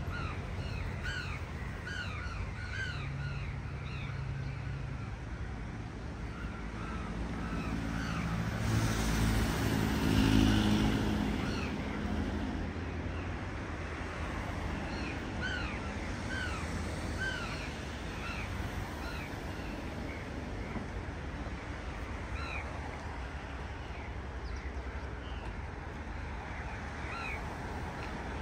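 Crows cawing again and again, several birds overlapping, over a steady low hum of city traffic. A vehicle passes, swelling and fading about ten seconds in.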